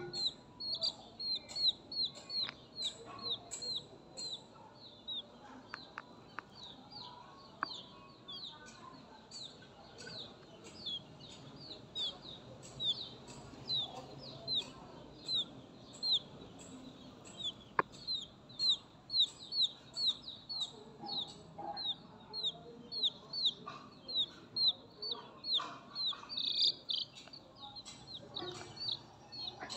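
Newly hatched Light Sussex chick peeping continuously. Each peep is a short, high note that falls in pitch, repeated about twice a second.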